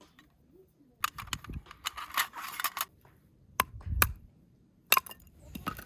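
Small objects being handled: a rustle lasting about two seconds, then four sharp clicks and knocks, a couple with a dull thud.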